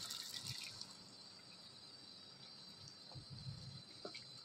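Boiled chickpeas and their cooking water being poured into a pan of fried masala, the pour tailing off within the first second. After that there is only a faint steady hiss with a few light clicks.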